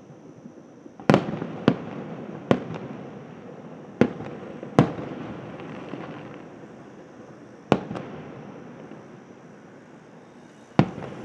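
Aerial firework shells bursting: about nine sharp booms, several in quick pairs, each trailing off in a rolling echo.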